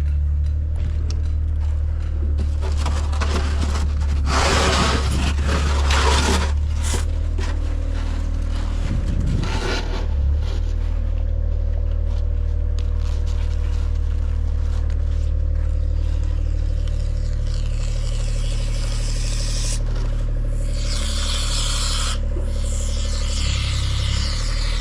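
Scraping and rubbing on a construction site, in bursts, over the steady low drone of a running engine.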